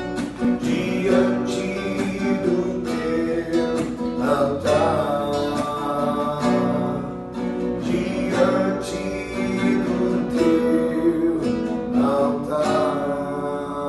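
Acoustic guitar strummed in steady chords, playing the instrumental close of a worship song.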